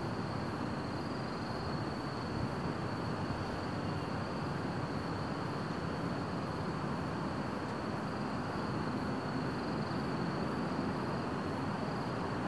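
Steady ambient noise: a low rumble and hiss with a faint steady high tone above it, and no firework bursts.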